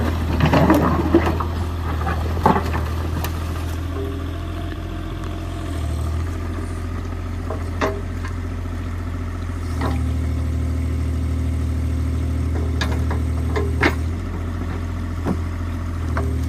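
Bobcat E35 mini excavator's diesel engine running steadily while its hydraulic arm and bucket dig into a beaver dam. Water sloshes around the bucket at the start, sticks clatter and knock now and then, and the engine drone steps up in level about ten seconds in.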